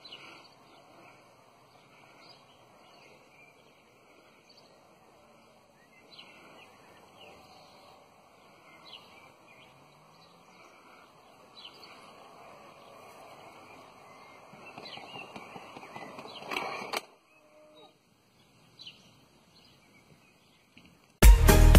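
Worx Landroid S robot lawn mower running over grass as it drives into its charging station. The sound grows louder as it nears and stops abruptly about seventeen seconds in. Birds chirp throughout, and loud electronic music starts right at the end.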